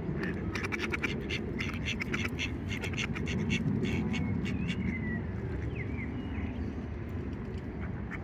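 Duck quacking in a rapid run of short calls that thins out about five seconds in, over a steady low rumble.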